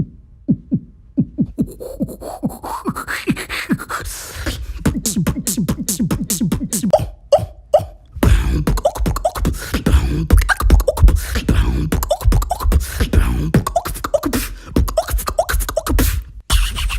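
Beatboxing: vocal percussion made with the mouth and throat. Quick clicks and a rising, whistle-like glide give way to a fast, even run of kick and snare hits over deep bass.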